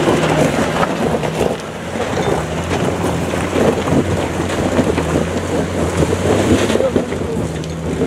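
Land Rover Discovery's engine running steadily under load as it crawls up a rocky dirt track, with tyres crunching and stones crackling and clicking under the wheels.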